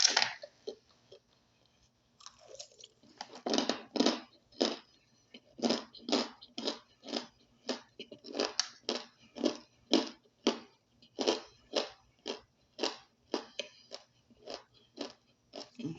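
Chewing a mouthful of dry powdered starch, crunching with each bite. After a quiet first two seconds, the crunches come steadily at about two a second.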